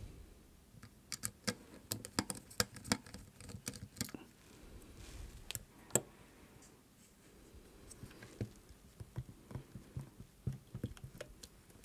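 Small sharp clicks and taps of hand work inside a thermal camera's opened plastic housing, as the screw holding the sensor module is taken out and the module is gripped with the fingers to lift it free. Dense clicking in the first half, one louder click about six seconds in, then scattered taps.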